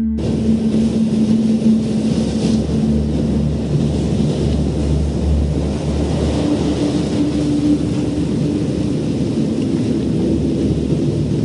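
Steady rushing sound of ocean surf, starting suddenly, over ambient music with sustained low drone tones.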